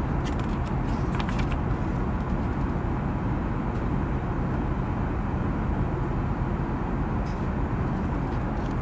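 Steady cabin noise of an Airbus A380 airliner in flight. Paper rustles as a page of a booklet is turned in the first second or so.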